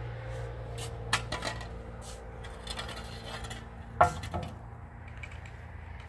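Hard objects being handled, clinking and knocking a few times; the loudest knock comes about four seconds in. A low steady hum runs underneath.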